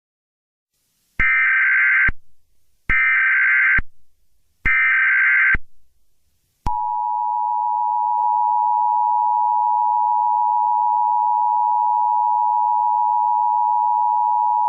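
Emergency Alert System SAME header: three short bursts of buzzing digital data tones, then the EAS two-tone attention signal sounding steadily. Together they announce that an emergency alert message follows.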